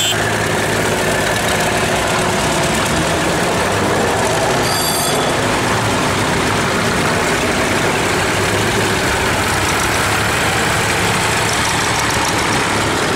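Engines of a line of vintage tractors running at low speed as they drive past one after another, a steady low engine sound. A brief high-pitched sound comes about five seconds in.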